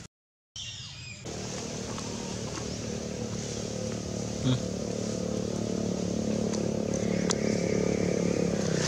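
A motor engine running steadily and slowly growing louder as it draws nearer, with a single short knock about halfway through.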